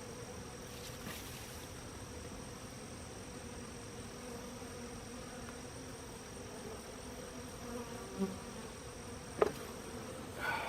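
A honeybee colony buzzing steadily around an opened hive, with a single sharp click near the end.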